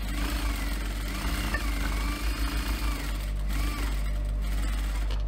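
Industrial sewing machine stitching through a folded faux leather strip. The motor whine rises and falls with the sewing speed over a steady low hum. It runs in one longer spell, pauses briefly about three seconds in, then gives a short burst and stops about four seconds in.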